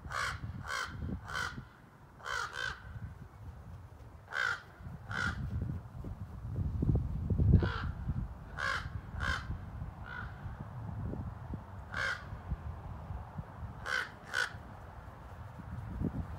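Crows cawing repeatedly, harsh short caws mostly in pairs and threes, about fourteen in all, scolding a cat on the ground below. A low rumble on the microphone runs underneath, loudest about halfway through.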